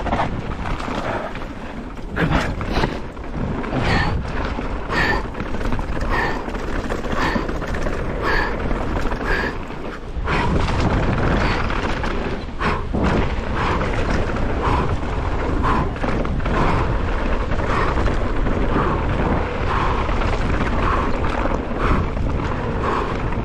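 Wind on the microphone and tyres rumbling over a rough dirt trail during a fast downhill mountain-bike descent, with the rider breathing hard about once a second. The low rumble grows louder about ten seconds in.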